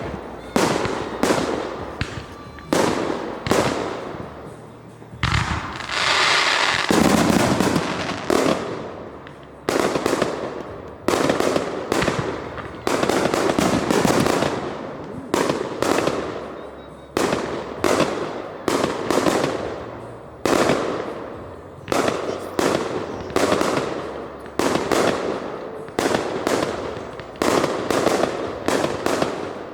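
Fireworks going off in quick succession: sharp bangs about once a second, each fading off after it, with a denser run of overlapping noise around six to eight seconds in.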